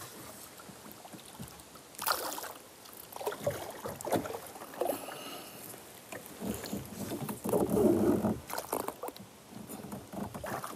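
A hooked largemouth bass splashing at the surface as it is brought alongside a small aluminum boat and landed by hand: water splashing and sloshing in short, scattered bursts, with a few brief knocks.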